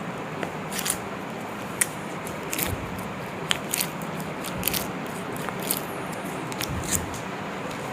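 A string of short, sharp clicks and crackles, about eight of them spread irregularly, over a steady background hum.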